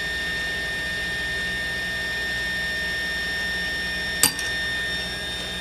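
Mark-10 motorized force test stand running with a steady whine as it pulls on a 30-gauge copper wire welded to stainless steel. A single sharp snap comes about four seconds in as the wire breaks at about 10 pounds, the wire giving way rather than the weld.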